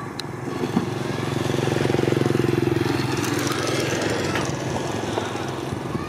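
Motorcycle engine running steadily, growing louder to about two seconds in and then easing off a little.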